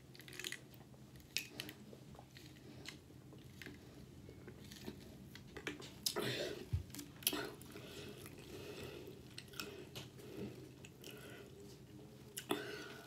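Close-miked eating sounds: chewing and swallowing, with a sip of ginger ale through a straw from a plastic bottle near the start. Scattered wet mouth clicks, with the loudest knocks and clicks about six seconds in as the bottle is handled, and more near the end as the grilled sandwich is pulled apart. A faint steady hum runs underneath.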